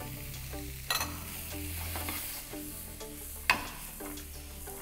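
Pork and vegetables stir-frying in a hot frying pan, sizzling steadily as a wooden spoon stirs them and the pan is tossed. There is a sharp clack about a second in and a louder one about three and a half seconds in.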